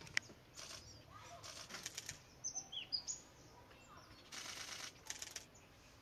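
Several short whirring bursts of small birds' wing-flaps. A few brief, high, falling chirps come about two and a half to three seconds in.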